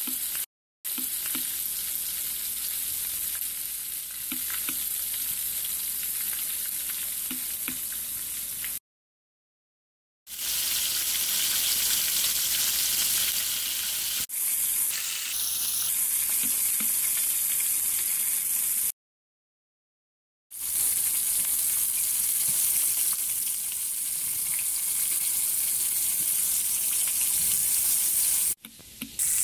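Floured chicken pieces shallow-frying in hot oil in a stainless steel skillet: a steady, dense sizzle. It breaks off twice into over a second of dead silence.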